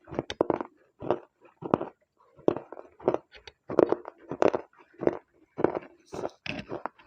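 Close-miked chewing of slate pencil and red clay paste: a steady run of crunchy, wet mouthfuls, a little under two chews a second.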